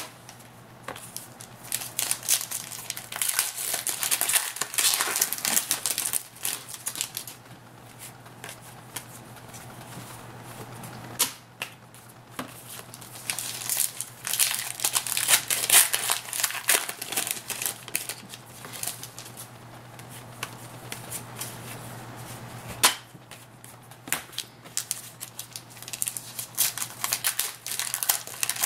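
Shiny plastic trading-card pack wrappers being torn open and crinkled, and cards riffled and handled, in bursts of crackling rustle with quieter pauses between them.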